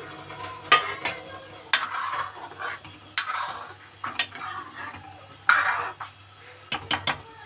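Metal ladle stirring thick curry gravy in a metal kadhai: a string of sharp, irregular clinks as the ladle strikes the pan's sides, with short wet scraping and sloshing strokes between them.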